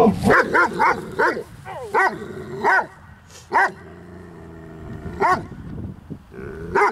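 German Shepherd barking at another dog on the leash, a quick run of barks at first and then single barks spaced a second or more apart: reactive, aggressive barking at a fellow dog.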